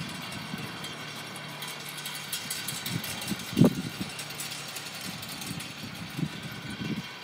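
Wind gusting across the phone microphone in low, uneven rumbles, the strongest about three and a half seconds in, over a faint steady hum of outdoor background noise with light ticking.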